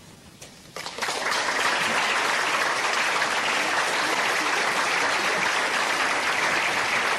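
Audience applauding: a few scattered claps just under a second in, then steady, dense clapping from the whole audience.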